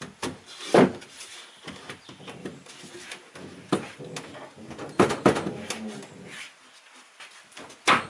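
Bed boards being set and pressed into place in the back of a small car: a series of sharp knocks and clunks with softer scraping and handling between them. The loudest knocks come about a second in, around five seconds in, and near the end.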